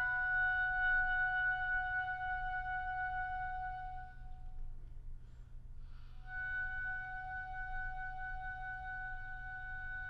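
Solo oboe holding a long high note that fades away about four and a half seconds in. After a short gap it comes back on the same pitch and is held again.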